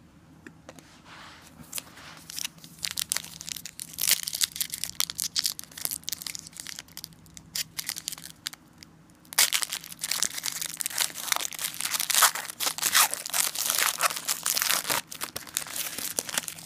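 Foil wrapper of a football trading-card pack being torn open and crinkled by hand, in two spells of crackling. The second, starting about nine seconds in, is denser and louder.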